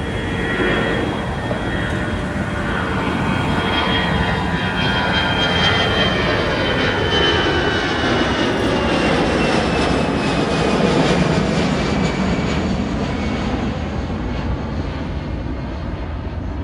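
Jet airliner passing close by: the engine noise swells and fades, while a high whine slides slowly down in pitch as it goes past.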